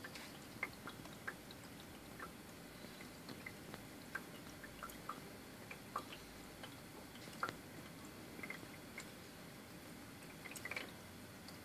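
Water dripping from a leaking ultrasonic humidifier: small, irregular drips at about one a second.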